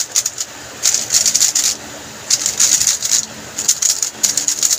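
A speed cube being turned quickly by hand: three runs of rapid plastic clicking, each about a second long, with short pauses between.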